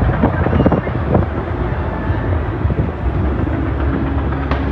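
Fireworks going off at a distance: a steady low rumble of many booms and crackles, thickest in the first second or so, with one sharp crack near the end.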